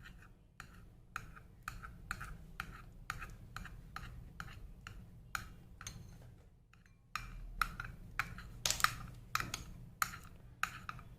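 A spoon stirring a sticky glue-and-cream slime mixture in a glass bowl: repeated sharp clicks and taps of spoon against glass, about two a second, with a brief pause about two-thirds of the way through.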